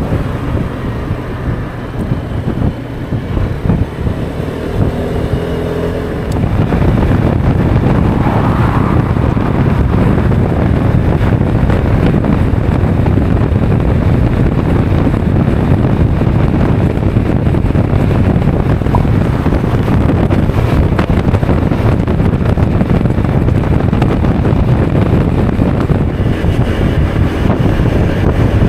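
Honda Forza 125 scooter's single-cylinder engine pulling away and climbing in pitch, then heavy wind rush over the microphone at cruising speed from about six seconds in, with the engine running underneath.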